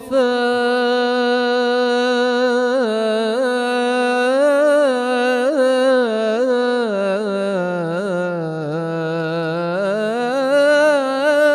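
Solo male voice singing an Islamic ibtihal, drawing one long melismatic line with wavering ornamental turns. The pitch sinks lower about eight seconds in and climbs back near the end.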